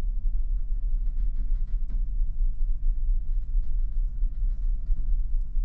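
Steady low rumble of the ferry's engines and hull vibration, heard inside a passenger cabin, with a few faint light clicks over it.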